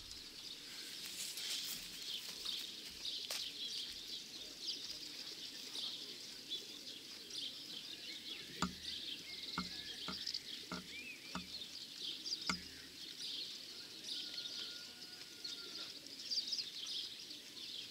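Small birds chirping and singing in a busy, continuous chorus. Half a dozen sharp knocks fall in the middle.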